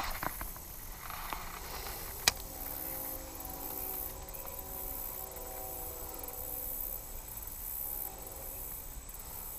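Baitcasting reel cranked quickly, a faint steady whir, with one sharp click about two seconds in as the retrieve begins.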